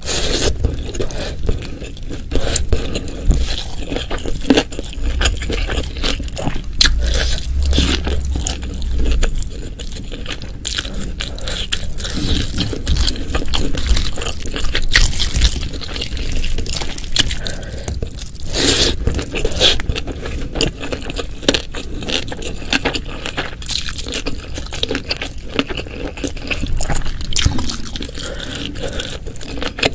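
Close-miked eating sounds: chewing and crunching mouthfuls, with scraping of food on a plate, making a constant run of small wet clicks and smacks.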